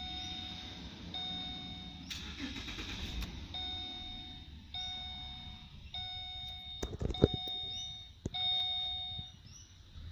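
Holden VE Commodore's dashboard warning chime repeating about once every second with the ignition on, with a few sharp clicks and a thump about seven seconds in.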